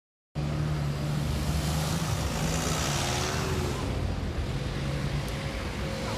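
City street noise cutting in abruptly a moment in: vehicle engines running with a steady low hum over traffic noise.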